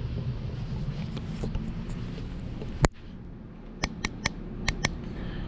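Handling noise from a phone being held and moved: a low rumble of fingers on the body, then a sharp click just under three seconds in and a quick run of about five sharp clicks a second later.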